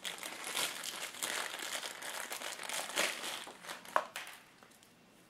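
Plastic packaging bag crinkling and rustling as a wiring harness is handled and taken out of it, for about four seconds, with one sharp click near the end before it goes quiet.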